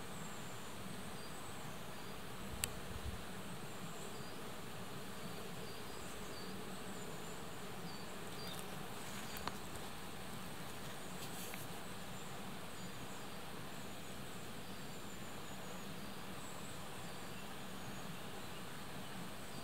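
Steady faint outdoor background noise with faint insect buzzing and scattered high chirps, and two brief clicks, a few seconds in and again near halfway.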